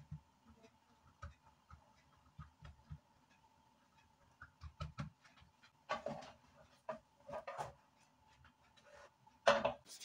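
Scattered soft clicks, taps and rustles of hands and kitchen handling, over a faint steady hum. There are louder bursts of handling noise about six and seven and a half seconds in, and the loudest knock comes near the end.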